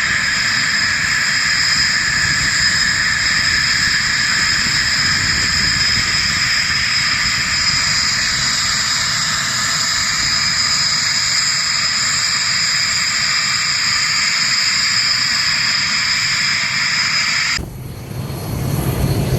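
A loud, steady mechanical whine: several high, level tones over a rushing noise. It cuts off abruptly about 17 and a half seconds in, and a lower, rougher rumble takes over.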